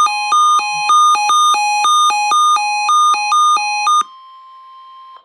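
Electronic emergency-alert tones: a buzzy beep alternating between a high and a low pitch about twice a second for four seconds. Under it runs a fainter steady tone, which carries on alone after the beeping stops and cuts off near the end.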